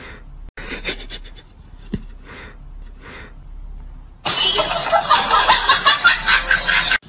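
Soft snickering laughter in short bursts, then about four seconds in a sudden, much louder harsh burst of noise lasting nearly three seconds and cutting off just before the end.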